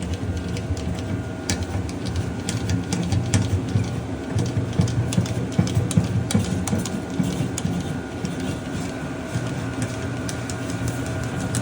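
A diesel caddy's transfer pump running steadily, sucking fuel out of a diesel heater's tank, with irregular sharp clicks over the hum.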